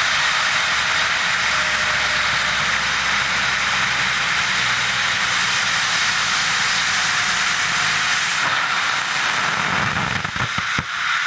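Hybrid rocket motor firing on a static test stand: a steady, loud roar of rocket exhaust. Near the end the roar turns uneven with a few sharp pops and weakens as the burn tails off.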